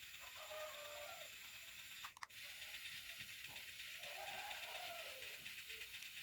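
Small battery-powered fan motor running with a steady, faint whirring hiss, briefly cut out about two seconds in.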